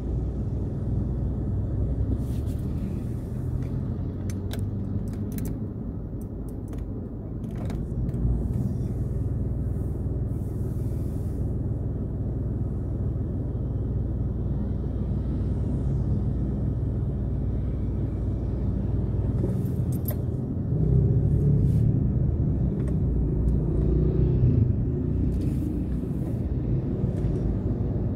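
Car driving slowly in traffic, heard from inside the cabin: a steady low engine and road rumble, with a few faint clicks and a louder stretch of rumble about three quarters of the way through.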